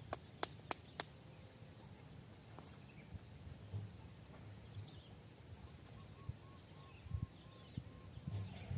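Quiet rural outdoor ambience: four sharp clicks in the first second over a low rumble, and faint insect chirping, a short run of evenly repeated pulses, about six seconds in.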